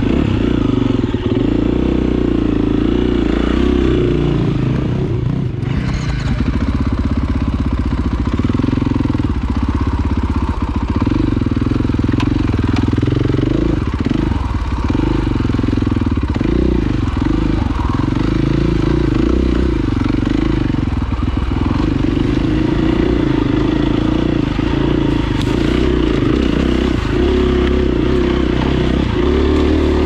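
Dirt bike engine running under way on rough singletrack, its note rising and falling continually with the throttle.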